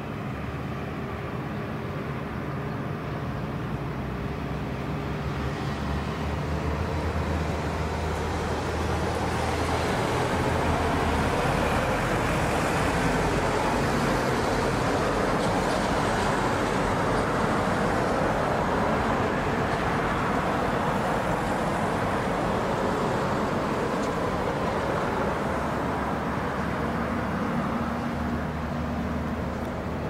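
Distant motor-vehicle noise, a steady rumble that slowly swells to its loudest about halfway through and then fades again.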